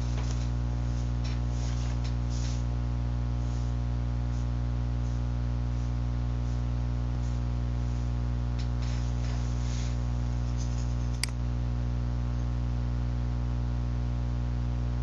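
Steady electrical mains hum with many even overtones, picked up by the recording microphone, with a few faint clicks and one sharper click about eleven seconds in.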